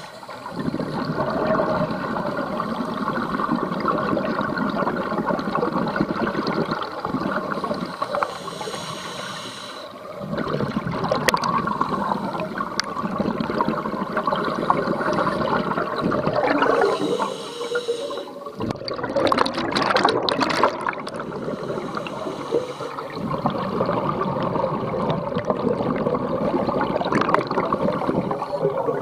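Scuba divers' exhaled bubbles gurgling and rumbling underwater, in long stretches broken by brief lulls between breaths.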